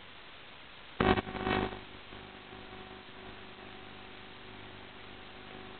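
Hiss on the audio of an analog 5.8 GHz FPV video link. About a second in there is a short loud burst of crackling, and after it a steady hum with several tones sits under the hiss.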